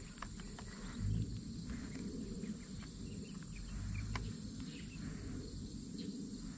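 A steady, high-pitched insect drone over low rumbling wind noise on the microphone, with a few faint clicks.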